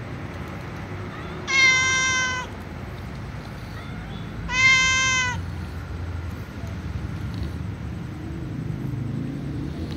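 Domestic cat meowing twice: two high, drawn-out meows about a second each, roughly three seconds apart.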